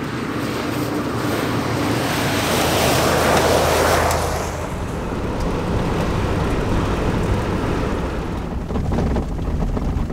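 Toyota Land Cruiser driving by on a gravel dirt road: tyre and engine noise swells as it comes close, loudest about three to four seconds in, then eases off. After that comes the steady low rumble of tyres on the dirt road heard from inside the moving vehicle.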